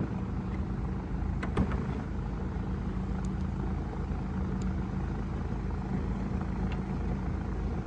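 A steady low background hum, with two light clicks about one and a half seconds in as a front parking sensor is pressed into its plastic mount on the back of the grille.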